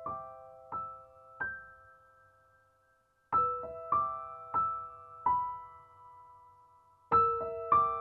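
Slow, soft piano music: short phrases of a few single struck notes, each left to ring and fade. The music dies away almost to nothing a few seconds in before the next phrase begins.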